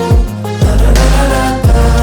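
Background hip-hop music with a heavy bass line. Deep bass notes slide down in pitch near the start and again about half a second in.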